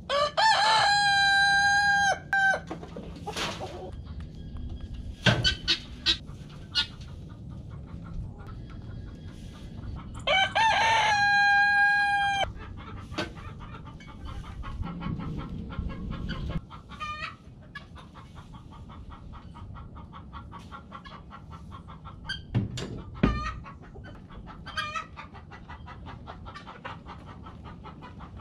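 A rooster crowing twice, each crow a long call of about two seconds, some ten seconds apart, with softer short clucks from hens in between. A few sharp knocks from the hay and wheelbarrow work.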